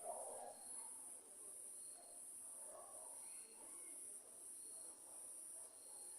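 Crickets chirping: a faint, high trill pulsing a little more than once a second, with a fainter, lower chirp from a second insect repeating about once a second.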